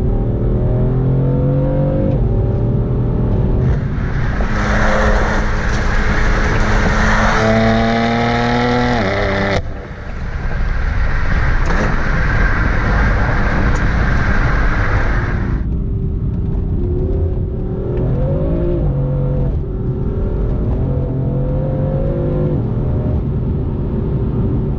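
BMW F8x M3/M4 twin-turbo inline-six running through a Dinan X-pipe exhaust, pulling hard with its pitch climbing for several seconds. It cuts off sharply about ten seconds in, comes back at a steady run, and then rises briefly again around seventeen seconds in.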